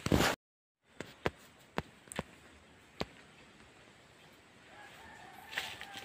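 A brief loud rustle cut off by half a second of dead silence, then a few scattered sharp clicks, and in the last second and a half a faint rooster crowing.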